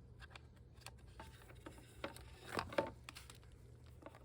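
Faint handling noises: scattered light clicks and rubbing, with a few louder knocks a little past halfway, as a turn-signal wire is fed through holes in an e-bike's frame and rear fender.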